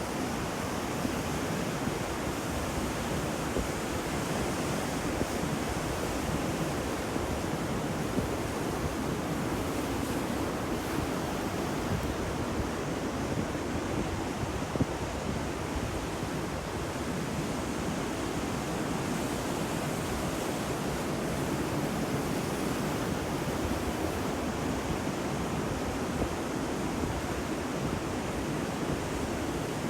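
Ocean waves breaking and washing on a shore, a steady dense surf noise with only slight swells in level.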